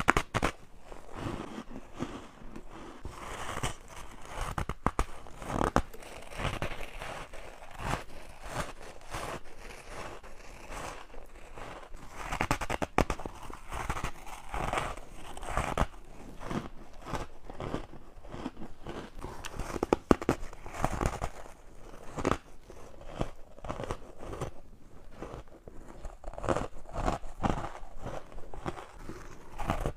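Close-miked bites into hard ice, a continuous run of crunching, crackling bites one after another.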